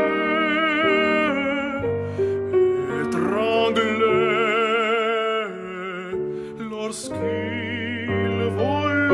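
Operatic tenor singing a slow art-song line in long held notes with wide vibrato, over piano accompaniment.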